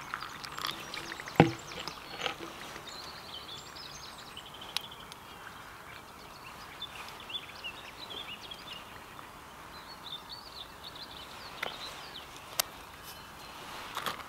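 Water poured from a bottle onto dry muesli in a plastic bowl, followed by a single sharp knock about a second and a half in. Then faint birds chirping with a few scattered small clicks, and near the end a spoon starts stirring in the bowl.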